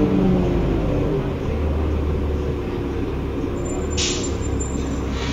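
2005 New Flyer D40LF transit bus with a Cummins ISL diesel: the air-conditioning's tones sag and stop near the start as the AC shuts off, leaving the engine's steady low rumble. A brief hiss comes about four seconds in.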